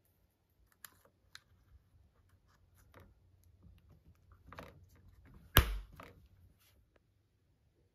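Faint clicks and scrapes of hands working the plastic battery compartment of an action camera, with one sharp, loud click about five and a half seconds in.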